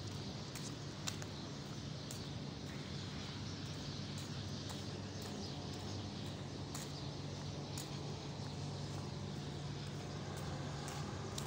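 Steady low machine hum, with a few light clicks scattered through it.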